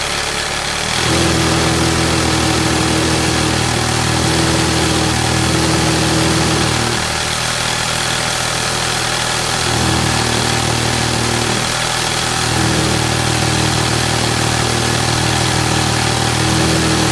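Industrial sewing machine running steadily with a continuous motor hum. Its tone shifts briefly a few times.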